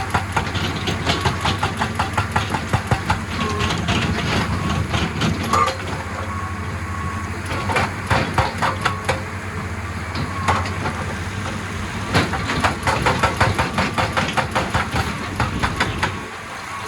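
Excavator breaking rock: the diesel engine runs steadily under runs of rapid, rhythmic hammering, about four or five blows a second, with short pauses between the runs.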